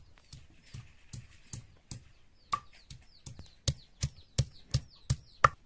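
Food being struck on a wooden board with a hand-held object, in steady knocks about three a second that grow louder about halfway through. A small bird chirps in quick falling notes in the background.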